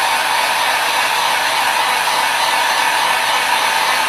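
Hot-air gun blowing steadily, heating a phone screen assembly to soften its adhesive so the layers can be separated.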